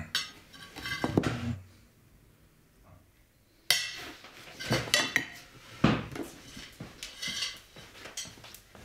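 Plates and cutlery clinking and clattering as dishes are cleared from a dining table, in a few bursts with a short lull about two seconds in, then a run of clinks.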